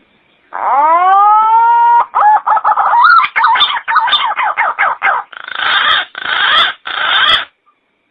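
A bird calling: a drawn-out note that rises and levels off, then a fast run of short chattering notes, then three longer harsh calls that end abruptly.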